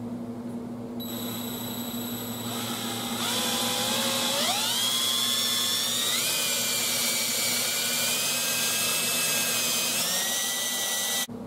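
Power drill boring a 3/16-inch hole into a metal bracket. The motor's whine starts faint about a second in, gets louder, climbs in pitch as the drill speeds up under the trigger, runs steadily, and cuts off suddenly near the end.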